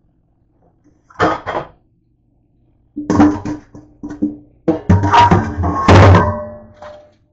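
Stainless steel pot knocked and clanked against the sink and faucet: two sharp knocks about a second in, then a run of clanks with metallic ringing from about three seconds on.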